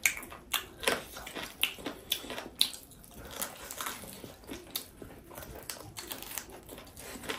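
Close-up chewing of tough, sinewy buffalo meat: irregular wet clicks and crunches of teeth working on meat that is hard to chew.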